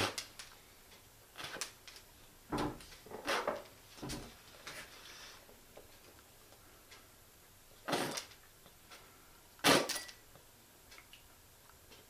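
Sunflower seeds being shelled with the teeth: short, irregular cracks and spits from the mouth, the loudest about ten seconds in.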